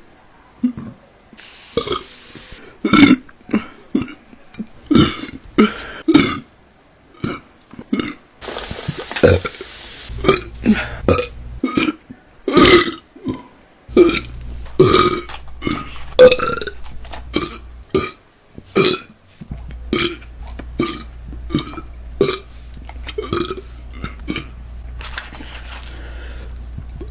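A woman burping loudly over and over: a rapid string of short burps, roughly one a second, with a low background hum that starts and stops every few seconds as one recording gives way to another.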